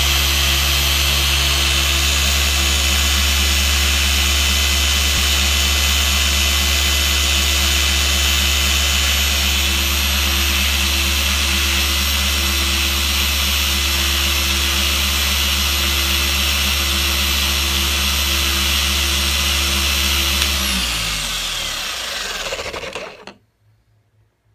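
Rupes BigFoot LHR15 random orbital polisher running at a steady speed while polishing a car panel, then winding down in pitch to a stop about 21 seconds in.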